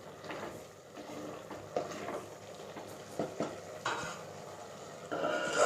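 A spoon stirring chicken in a metal cooking pan, with a few scattered clinks and knocks against the pan and a louder scrape starting near the end.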